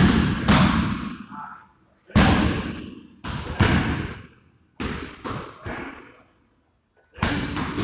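Kicks and gloved punches landing on Muay Thai pads: hard slaps about every second or so, several in quick pairs, each dying away briefly in the hall.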